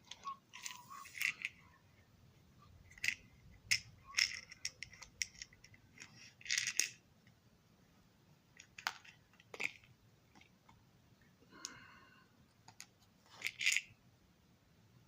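Scattered light clicks, taps and rattles of small model train parts being handled and worked on a bench, at irregular intervals.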